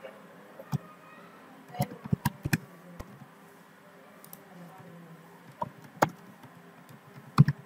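Computer keyboard keys being typed: a handful of separate keystrokes at irregular intervals, a cluster in the first few seconds and a few more near the end, over a faint steady hum.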